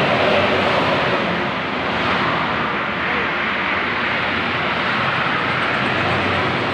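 Intercity coach bus driving past on a highway amid other traffic: a steady rush of tyre and engine noise.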